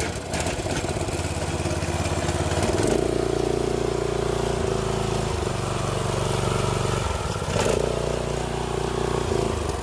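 Small petrol engine of a Giantz petrol pressure washer running on choke, freshly started, with its pump turning without a water supply connected. The running note steps up about three seconds in and shifts again around seven and a half seconds.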